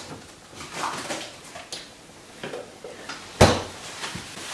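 Kitchen handling sounds: faint scattered clatter, then one sharp knock about three and a half seconds in.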